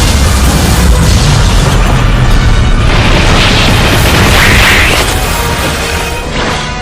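Cartoon-style explosion sound effect: a long, loud rumbling blast with a hiss that swells in the middle and then fades out near the end, laid over background music.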